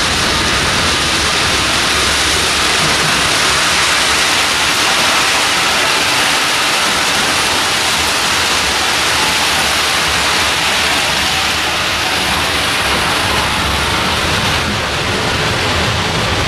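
Crushed-stone ballast pouring out of the bottom doors of moving Herzog ballast hopper cars onto the track bed: a loud, steady rushing hiss like a waterfall, over the roll of the train. Near the end the rushing eases a little and the low rumble of the wheels grows.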